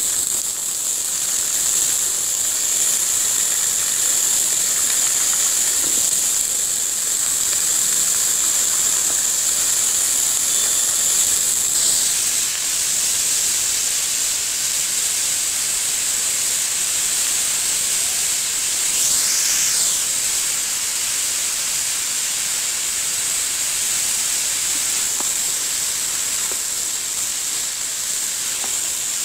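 Radish sticks frying in hot oil in a wok: a steady, high-pitched sizzle.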